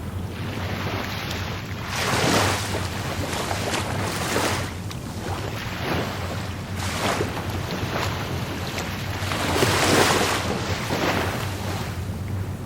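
Rough Caribbean Sea surf: waves breaking and washing in, in repeated swells, the biggest about two seconds in and again near ten seconds, over a steady low rumble.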